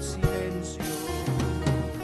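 Live band music in a pause between sung lines: acoustic guitar over a bass line, with a few sharp drum hits.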